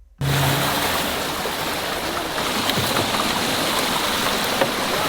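Steady, even rush of water noise that starts abruptly and holds at a constant level.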